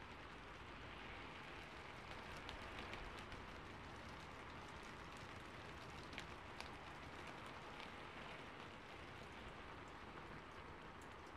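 Faint steady hiss of background noise, with a few light ticks now and then.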